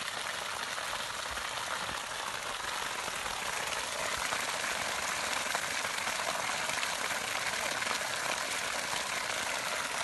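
Water from a 3 HP solar borewell pump pouring out of its discharge pipe in a thick jet and splashing onto muddy, waterlogged ground: a steady rushing splash.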